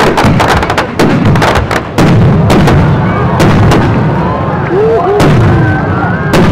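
Aerial firework shells bursting close overhead: a rapid series of sharp booms, about one a second, with a low rumble between them.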